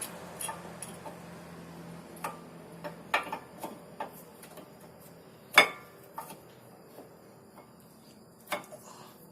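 Irregular metallic clicks and taps of a new front brake pad being seated into a Kia Rio's caliper bracket, with one sharp click about five and a half seconds in and another near the end.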